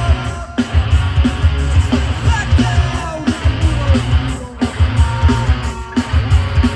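A live hardcore/punk band playing loud over a festival PA: distorted electric guitar, heavy pounding drums and bass, and vocals. The band cuts out for an instant a few times.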